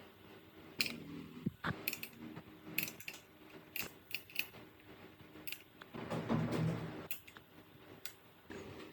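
Scattered sharp clicks and light metallic clinks of small parts and hand tools being handled, with a short scraping rustle about six seconds in.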